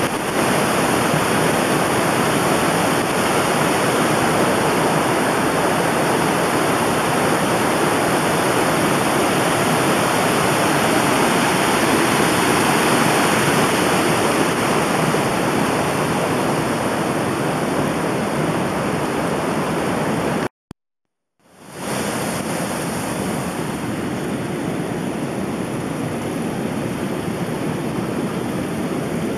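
Steady rushing water, an even loud rush with no distinct splashes. About two-thirds of the way through it cuts out for about a second, then a slightly quieter, duller rush continues.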